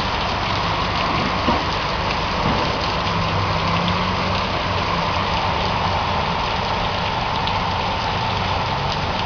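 Heavy rain falling steadily onto a flooded street, with a faint low hum underneath.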